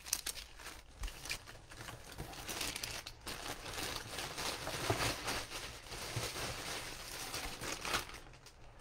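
Clear plastic packing bag crinkling as it is handled, a dense run of small crackles that thins out near the end.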